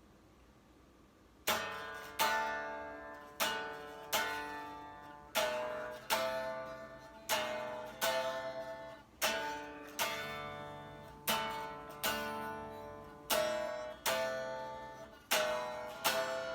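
Guitar playing a song's intro: after a second and a half of quiet, chords struck one at a time, roughly once a second, each left to ring and fade before the next.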